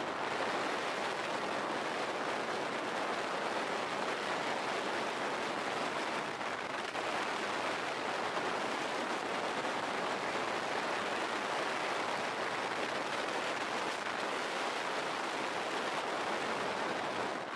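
Longboard wheels rolling fast on asphalt with wind rushing past, a steady even noise with no breaks.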